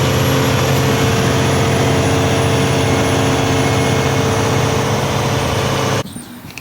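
Semi truck's diesel engine running steadily, a loud drone with a thin high whine over it: the weird noise the driver is trying to track down. It cuts off suddenly about six seconds in.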